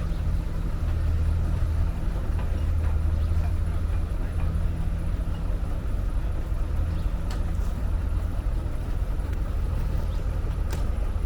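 Heavy construction machinery's diesel engine running steadily under work, with a couple of sharp clicks in the second half.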